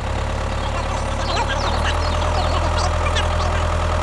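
Tractor engine running steadily at idle, with short high chirps scattered over it.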